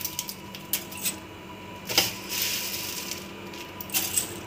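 Roasted vermicelli (sevai) being broken by hand and dropped into a steel pot of hot milk: a run of light rustles and clicks, the sharpest about two seconds in.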